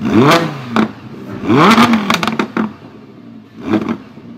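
Lamborghini Huracán's V10 revved from idle: two sharp blips about a second and a half apart, each falling back with crackles and pops from the exhaust, then a short third blip near the end.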